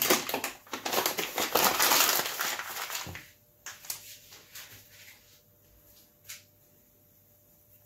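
A paper flour bag crinkling and rustling loudly for about three seconds as it is handled and put away. After it come a few light clicks and scrapes of a metal spoon stirring in the mixing bowl.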